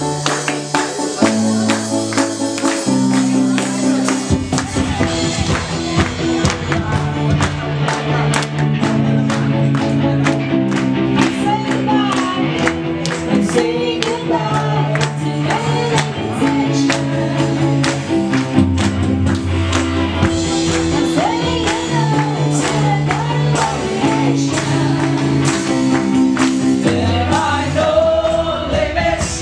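Upbeat gospel worship song: sustained bass notes and shifting chords under a steady, crisp percussive beat, with singing voices coming in partway through.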